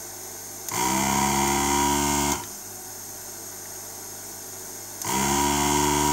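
Small vacuum-pump motor of a desoldering station running twice, about a second and a half each time. Each run spins up with a rising hum and then holds steady while it sucks solder off the old capacitor leads on a power-supply board.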